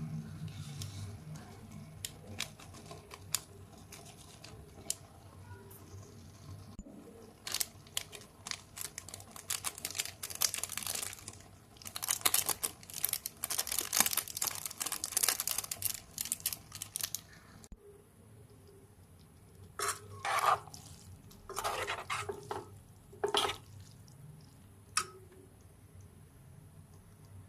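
A metal utensil stirring, scraping and clattering against cookware in dense runs of clicks, then, after a sudden break about two-thirds through, a few separate ringing clinks.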